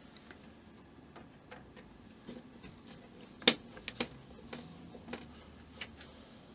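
Irregular clicks and taps of small model-kit parts and tools being handled and set down on a work surface, the loudest one about halfway through.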